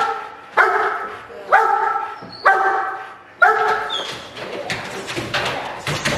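Young German Shepherd barking, loud pitched barks about one a second for the first four seconds. After that come scuffling, clicks and knocks as the dog lunges out of the wooden bite box at the decoy.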